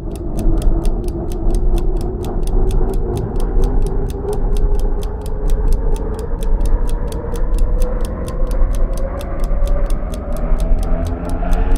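Steady clock-like ticking, about four ticks a second, over a low drone whose tones slowly rise, building toward the music.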